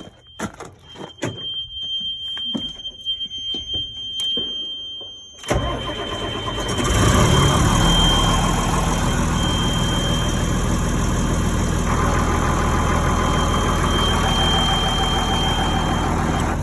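Cummins 8.3 diesel engine with CAPS fuel system cranking about five and a half seconds in after a few clicks, catching within about a second, and then running steadily. The no-start is cured by the new transient suppressor diode.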